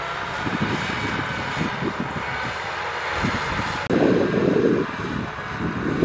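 Kubota M6040SU tractor's diesel engine running under load as it pulls a disc plough through stubble, with irregular low knocks. About four seconds in the sound changes abruptly to a louder, rougher rumble.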